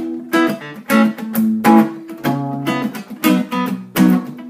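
Acoustic guitar strummed in a steady rhythm, a few strokes a second, with the chords ringing between strokes.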